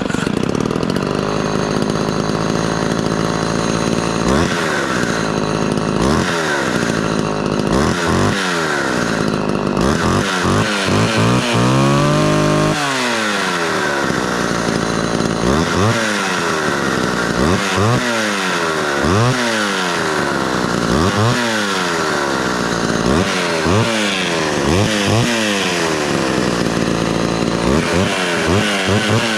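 Homelite XL12 two-stroke chainsaw running on half choke after a cold start, its throttle blipped over and over so the engine revs up and falls back to idle every second or two, with one longer held rev about twelve seconds in.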